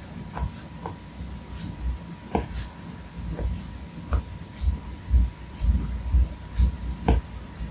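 Apple Pencil tip tapping and stroking on an iPad Pro's glass screen: irregular light clicks, with a run of dull low thumps from the hand on the tablet in the second half.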